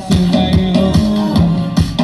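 Amplified pop music played through a stage sound system, with a steady drum beat and bass line.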